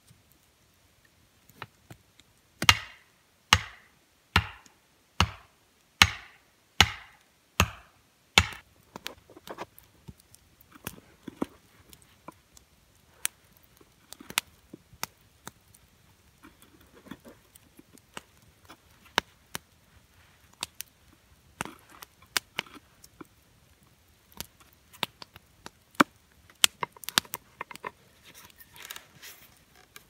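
About eight sharp chopping strikes on wood, a little under a second apart, each with a short ringing tail. Then a knife whittles a wooden stick: light, irregular clicks and scrapes as shavings come off.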